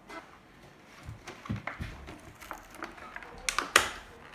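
Clear plastic packaging crinkling and crackling as it is handled and opened, in scattered short crackles, with the sharpest ones about three and a half seconds in.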